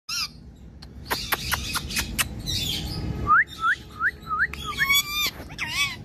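Rose-ringed parakeet (Indian ringneck) calling: a short call at the start, then a run of sharp clicks, then four quick rising chirps, and near the end two longer, wavering calls.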